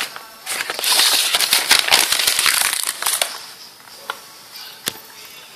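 A sheet of PCB transfer paper crumpled by hand: dense crinkling for about three seconds, followed by a couple of light knocks.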